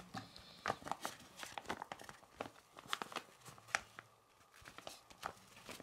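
Black nylon drawstring lens pouch being handled and opened by hand: light fabric rustling with scattered short, soft clicks.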